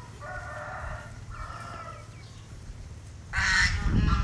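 Domestic fowl calling: two drawn-out, pitched calls in the first two seconds, then a louder, noisier burst of under a second a little after three seconds.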